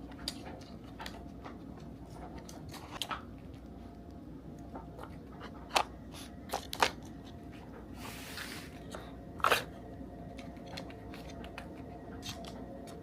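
Dog working a nosework toy: scattered clicks and crunches as it noses the toy and chews the treats it finds, with a short rustle about eight seconds in.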